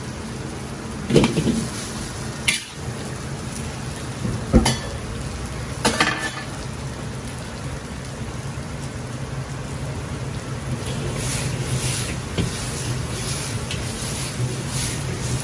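Noodles frying in oil in a wok over a gas burner: a steady burner rush under the sizzle, with a few sharp knocks from the wok in the first six seconds and more crackling near the end.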